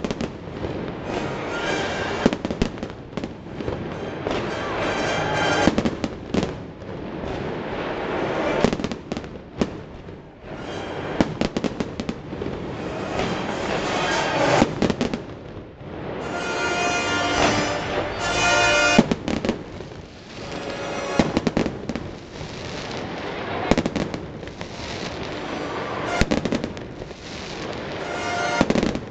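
Fireworks show: shells bursting in quick succession with dense crackling, swelling and easing in waves every few seconds.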